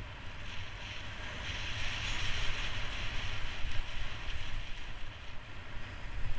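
Skis hissing as they slide downhill over snow, with wind buffeting the microphone. The hiss swells for a couple of seconds in the middle.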